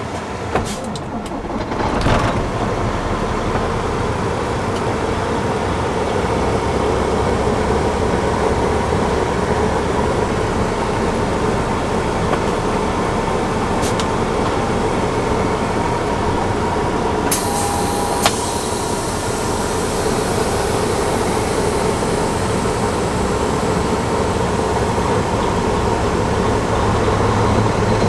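Diesel grain truck running steadily as it is driven, with a few knocks in the first two seconds.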